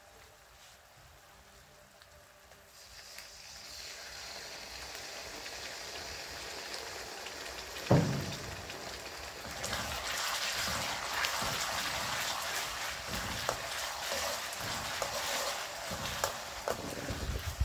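Oil sizzling in a steel wok with shallots, garlic and dried chillies, the sizzle swelling after a few seconds. A single thump comes about halfway through, then louder sizzling with the clicks and scrapes of a metal spatula stirring against the wok.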